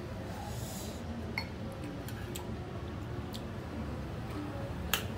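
Scattered light clicks and clinks of a spoon on a steel plate and of glassware, over a low steady room hum, with two sharper clinks near the end.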